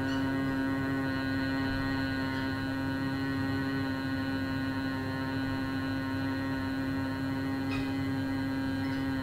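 A man humming one steady held note through closed lips and blocked ears, the long exhaled hum of bhramari (humming bee) breathing.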